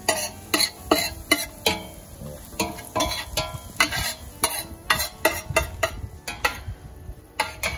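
Metal spoon stirring and scraping around the bottom of a large stainless-steel pot, with repeated sharp clinks against the metal, about two or three a second, as chopped onion, garlic and spices fry in oil.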